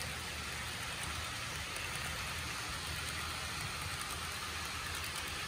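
HO scale MTH model diesel locomotive and its double-stack freight cars rolling past on the track: a steady rushing noise of wheels on rail, with a low engine drone underneath.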